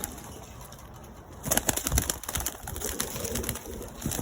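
Domestic pigeons cooing in a loft, with a run of sharp clicks and taps about halfway through.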